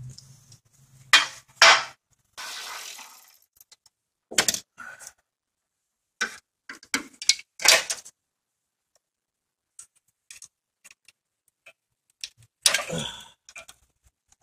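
Scattered metallic clinks, knocks and rattles of hand tools and metal car parts being handled during under-hood work, with a short scraping noise about two and a half seconds in and a busier burst of clatter near the end.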